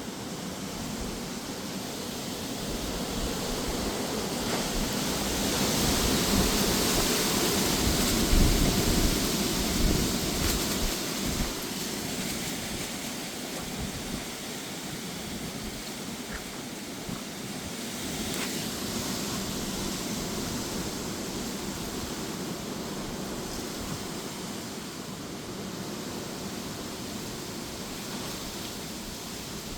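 Strong, gusty wind blowing steadily. A gust builds to its loudest about eight seconds in, with a low rumble of wind buffeting the microphone, then eases back to a steady blow.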